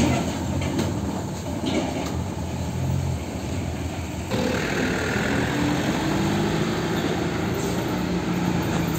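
Diesel truck engine and tyre noise from an LPG tanker semi-trailer passing on the road. After a sudden cut about four seconds in, the engine of a MAN tractor unit hauling another LPG tanker rises in pitch as it pulls toward the camera, then holds steady.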